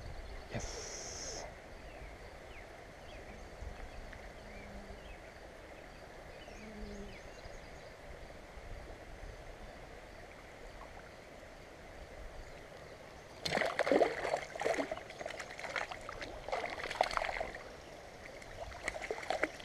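Steady rush of a flowing stream. About thirteen seconds in, a few seconds of loud, irregular knocking and clattering break over it, with a few more knocks near the end.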